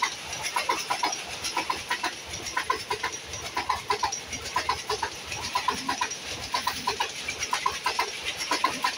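Passenger coaches of an express train running past at speed, their wheels clacking over a rail joint in quick groups of two or three about once a second, over the steady rush of the train.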